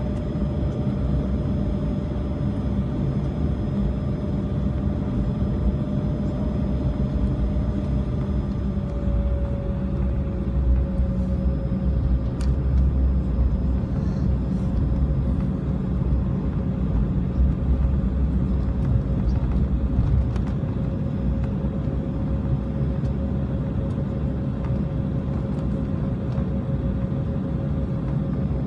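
Jet airliner cabin noise while taxiing: a steady engine whine that drops a little in pitch about ten seconds in, over a low rumble from the rolling aircraft.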